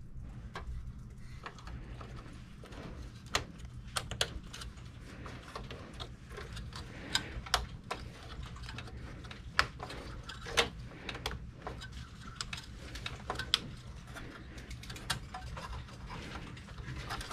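Irregular clicks and taps of plastic and metal parts being handled and seated inside an open Dell Precision 7920 workstation tower, with a few sharper clicks about halfway through, over a low steady hum.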